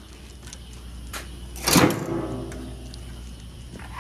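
A metallic clank from handling the diesel pump nozzle at the fuel island, with a few lighter clicks before it. The clank rings on for about a second, over a low steady hum.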